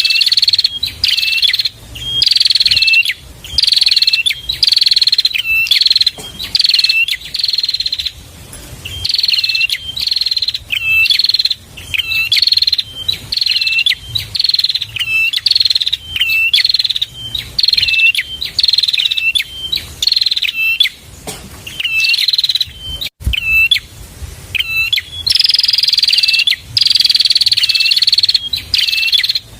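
Prenjak (prinia) singing: loud, high chirping phrases repeated about once a second with short gaps between them.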